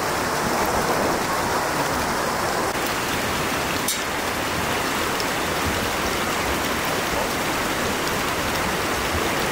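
Steady rush of a mountain stream running over rocks.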